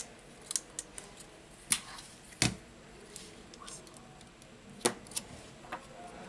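Small clicks and taps of a Samsung Galaxy J6+ phone frame and its replacement display module being handled on a silicone repair mat. There are a few sharper knocks, at about two seconds, two and a half seconds and five seconds in.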